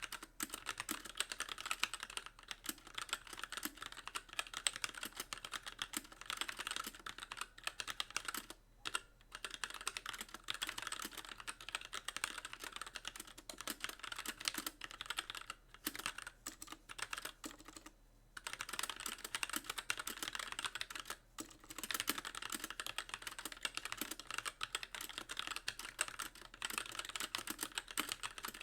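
Steady, fast typing on a Magicforce mechanical keyboard with very light Gateron Clear linear switches and stock keycaps, the keys bottoming out on nearly every press. The keystrokes run almost without a break, with short pauses about nine, sixteen, eighteen and twenty-one seconds in.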